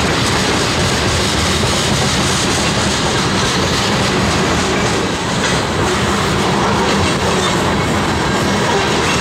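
Freight train of covered hopper and tank cars rolling past on the near track: a loud, steady noise of steel wheels running on the rails.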